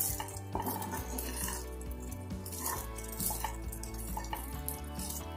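A spatula stirring and scraping cooked vermicelli upma around a nonstick frying pan: a run of irregular soft scrapes and light knocks.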